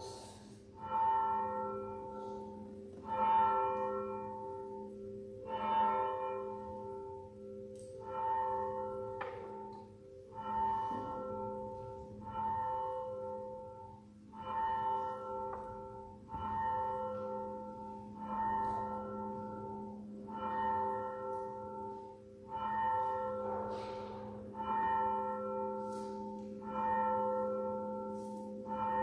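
A single church bell tolling, struck about every two seconds. Each stroke rings the same note and hangs on under the next, over a steady low hum.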